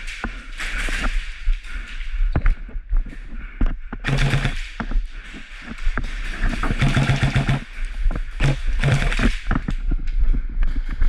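Airsoft guns firing: scattered single shots and short rapid full-auto bursts, the longest about a second long near the middle.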